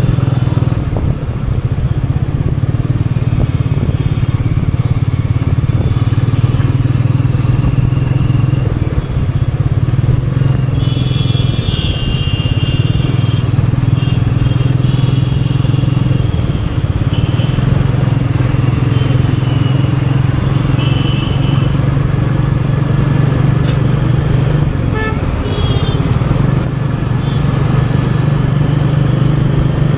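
Royal Enfield Meteor 350's single-cylinder engine and exhaust running steadily at easy city-riding speed, easing off briefly about three times.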